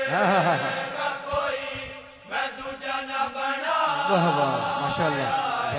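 Unaccompanied male voices reciting a devotional kalaam: a chorus holds steady drawn-out notes while a lead voice sings a wavering, gliding line over them, dipping briefly about two seconds in.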